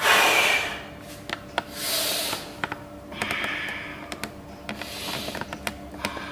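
A man breathing out forcefully four times, about every second and a half, as he curls a pair of dumbbells, the first breath the loudest. Light clicks sound throughout.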